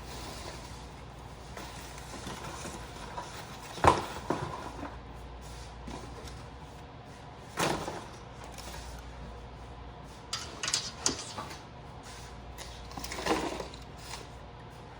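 A handful of scattered knocks and clatters, the loudest about four seconds in and a quick run of clicks later on, over a steady low background hum.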